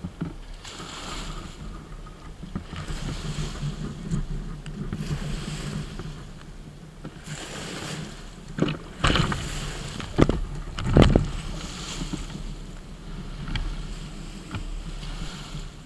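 Water rushing and splashing against the hull of a Kyosho Seawind radio-controlled sailboat in rough water, heard close up on board. Waves wash over it in surges every second or two over a low steady hum, with a few sharp slaps of the hull into the waves about halfway through.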